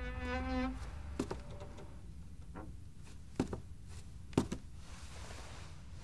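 A held musical note from the score ends within the first second. A few sharp, isolated knocks follow over quiet room tone, the two loudest about a second apart.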